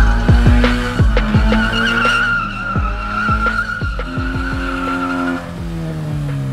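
Widebody Toyota 86–type coupe doing donuts: the tyres give a steady high squeal while the engine revs pulse sharply again and again, several times a second at first. The squeal stops about five seconds in and the engine settles to a steadier note.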